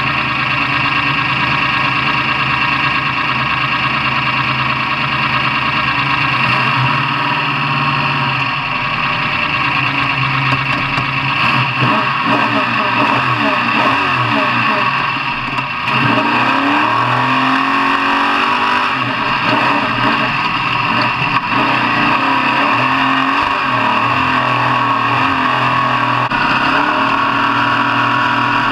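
Off-road truck engines revving, with repeated rising and falling sweeps in pitch from about 11 to 22 seconds in, over a steady loud din.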